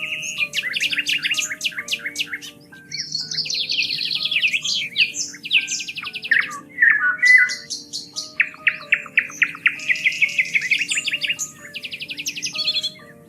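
Songbirds singing busily, with fast trills and chirps overlapping one another, over soft background music of slow, sustained low notes.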